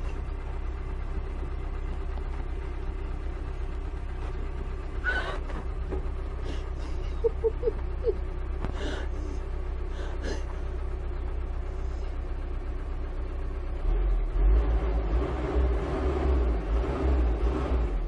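Heavy construction machinery's diesel engine running steadily, with a few short knocks, and a louder low rumble over the last few seconds.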